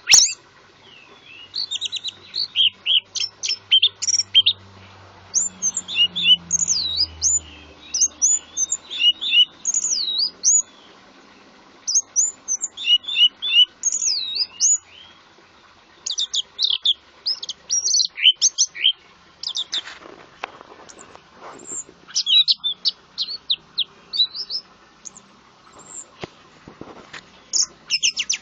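A songbird singing a rapid, varied song of high sweeping chirps and whistles, delivered in quick phrases separated by short pauses.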